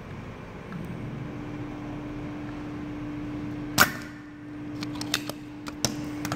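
Desoldering pump (solder sucker) firing once with a sharp snap about four seconds in as it sucks molten solder from a circuit-board joint, followed by a few lighter clicks. A steady low hum runs underneath from about a second in.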